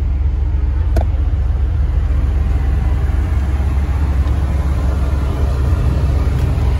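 A steady low rumble with a faint click about a second in.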